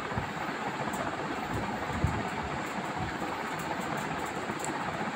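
Steady rushing background noise with a few faint ticks.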